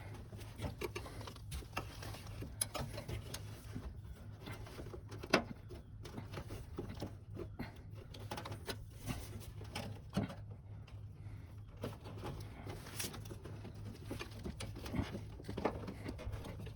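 Scattered light clicks and taps of hands and a socket tool working a 10 mm fender bracket bolt back out, with one sharper click about five seconds in, over a steady low hum.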